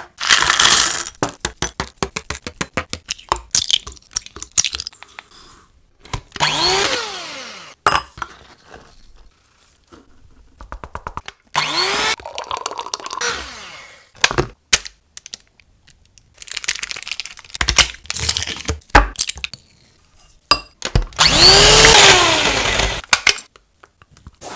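Electric hand mixer beating batter in several runs of a few seconds each, its pitch rising and falling as the motor speeds up and slows. Between the runs are many quick clicks and taps of utensils on glass and plastic bowls.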